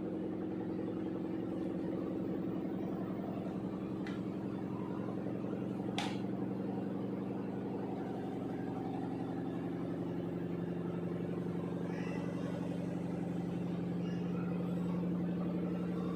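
LG 7 kg top-load automatic washing machine spinning its drum at full speed on a dry-only cycle: a steady motor hum with a held drone. A faint click comes about six seconds in.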